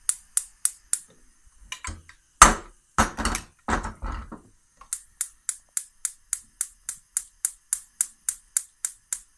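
Gas hob's spark igniter clicking rapidly, about three or four clicks a second, while the burner is slow to catch. A few louder knocks and rattles break in about two to four seconds in, then the clicking resumes.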